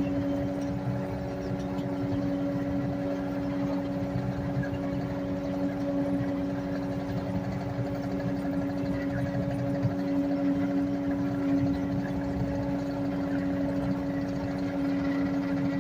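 Skid steer engine running at a steady speed with an even drone and hum, while the machine carries a telephone pole chained to its bucket.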